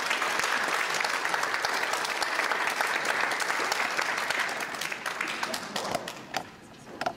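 Congregation applauding in a dense patter of clapping that thins out and dies away about six seconds in.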